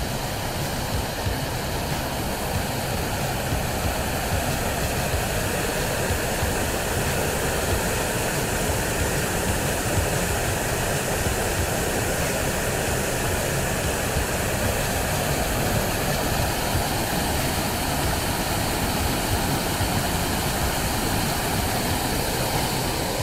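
Waterfall's rushing water: a steady, unbroken rush of white water pouring over the falls.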